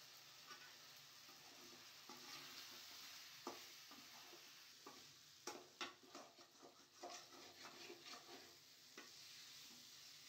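Faint steady sizzle of food frying in a pan, with a run of clicks and scrapes of a utensil stirring it from about three and a half to nine seconds in.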